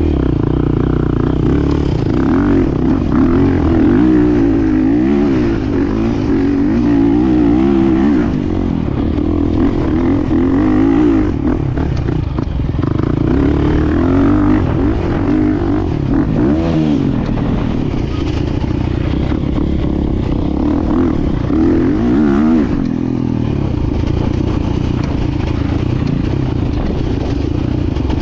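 KTM EXC-F 350 dirt bike's single-cylinder four-stroke engine being ridden hard, revving up and down as the throttle opens and closes. It goes steadier over the last few seconds.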